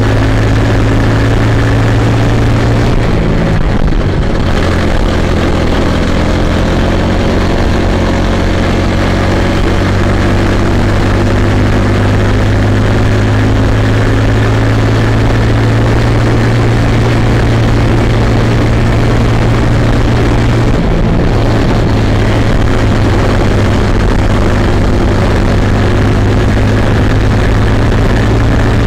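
Kid kart's small two-stroke engine running at race pace, heard onboard and close up. The note eases briefly about four seconds in and again about 21 seconds in, then picks back up.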